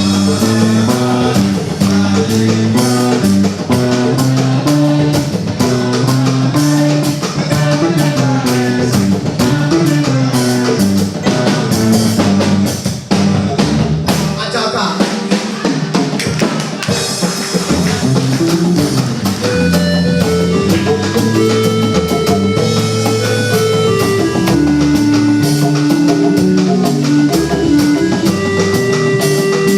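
Music with a drum kit keeping a steady, busy beat under bass and melodic instruments, with held notes in the second half and a short break in the drums about halfway through.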